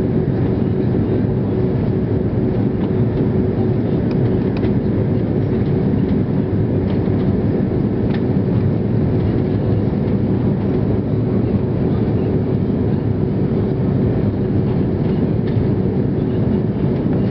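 Steady cabin noise inside an Airbus A330 airliner descending on approach: a constant rush of engine and airflow noise with a steady low hum running through it.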